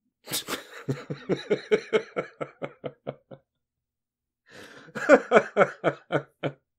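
A man laughing in two bouts: a long run of rapid "ha" pulses that fades away, then after a short pause a second, shorter run.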